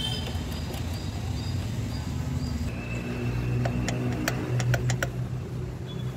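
Several sharp clicks from hands working on a car's throttle body in the engine bay, over a steady low hum.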